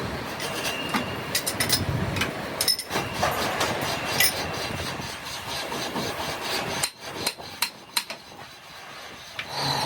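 Hand work on metal parts: a run of irregular knocks, taps and scraping, thinning out near the end.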